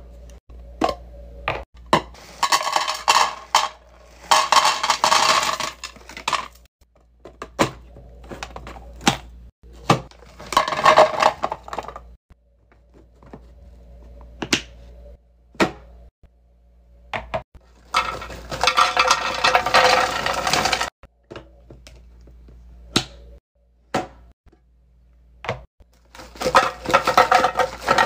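Hard plastic snack canisters being handled: sharp clicks and knocks of the flip-up lid and latches opening and shutting. Four spells of crinkling and pouring, the last near the end as red candy slides from its bag into the plastic canister.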